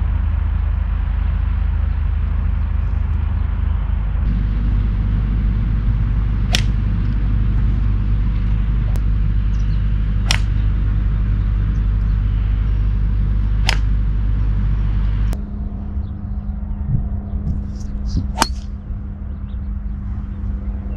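Golf clubs striking balls: sharp cracks a few seconds apart, the last one a tee shot near the end, over a steady low rumble.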